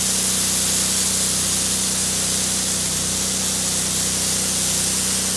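Gas roof pump spraying a long stream of soft-wash mix through a J-Rod spray handle onto a shingle roof: a steady spray hiss over the pump engine's steady hum. The spray cuts off suddenly at the very end, leaving the engine running.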